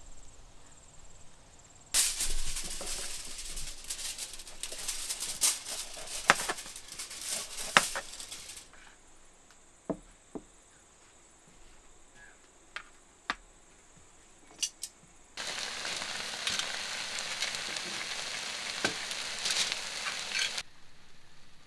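Vegetables and chicken sizzling on foil on an electric grill plate, with sharp clicks of metal tongs. The sizzling comes in two stretches that each start and stop suddenly, with a quieter gap of a few single taps between.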